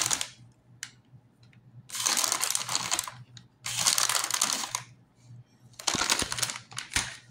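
Plastic bag of shredded mozzarella crinkling as it is squeezed and shaken to pour cheese out, in bursts of about a second, three times, then once more briefly near the end.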